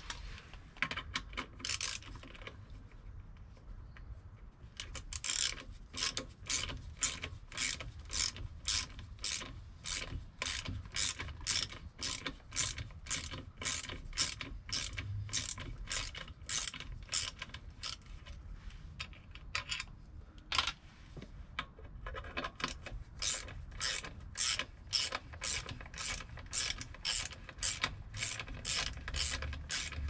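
A hand ratchet being worked in steady strokes, clicking about twice a second. It stops briefly about two-thirds of the way through, then carries on.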